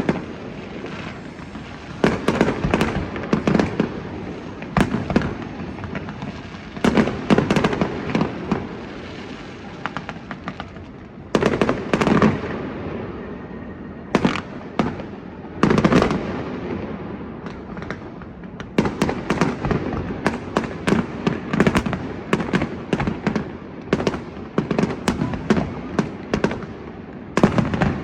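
Aerial fireworks going off: repeated loud bangs that echo, with bursts of rapid crackling, in clusters every few seconds.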